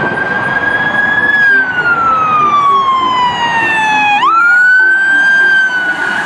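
Toy police car's electronic siren wailing: one tone that falls slowly for about three seconds, then sweeps quickly back up about four seconds in and holds.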